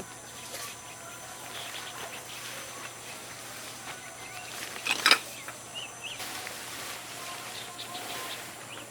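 Outdoor ambience: birds chirping and insects over a steady background hiss, with one brief, loud rustle-like noise about five seconds in.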